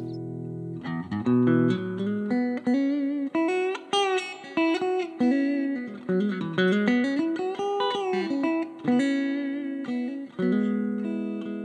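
Electric guitar played through a Veri-Tone Arcturus Class A preamp pedal: a chord dies away, then a picked single-note lead line runs with the pitch gliding up and back down in the middle. About ten seconds in, a final chord is struck and left ringing.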